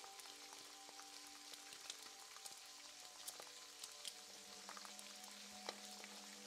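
Food frying in a hot pan: a quiet, steady sizzle with frequent small crackles and pops.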